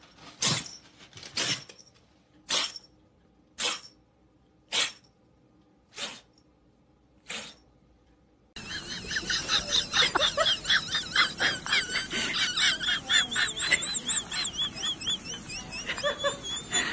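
A cat sneezing over and over, seven short sharp sneezes about a second apart, getting fainter. About eight and a half seconds in, a dense run of high chirping takes over.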